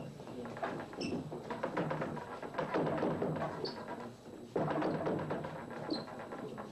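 Quick, irregular wooden knocks and clacks of forearms and hands striking wooden training dummies, with the hubbub of several people training in a busy room.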